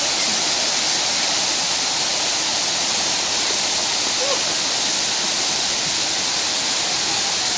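Gabai Waterfall rushing steadily: a loud, unbroken hiss of falling water.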